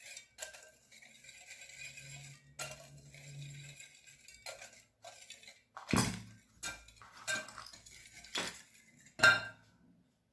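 A whisk stirring dry cake ingredients in a mixing bowl, a soft steady scraping and clinking against the bowl. In the second half come several sharper knocks, the loudest near the end.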